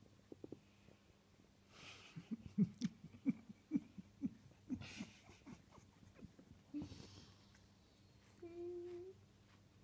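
Pets snuffling and wheezing close to the microphone: a run of short low snorts, about two a second, mixed with a few breathy sniffs. A brief steady whine comes near the end.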